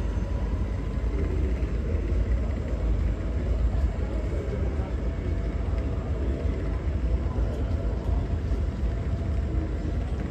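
DB class 1440 (Alstom Coradia Continental) electric multiple-unit train rolling past, wheels rumbling on the rails with a faint steady whine from its electric drive.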